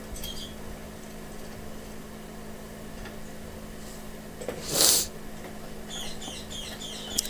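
Quiet bench work over a steady low hum, with one brief, loud rustling scrape about five seconds in as a pair of pliers is picked up. Near the end a small bird chirps several times, faintly.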